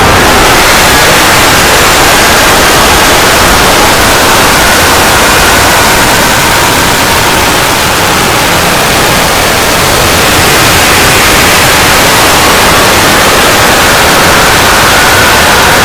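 Deliberately overamplified, clipped audio: a harsh, static-like noise at near full loudness, almost unchanging, with a faint steady whine running through it.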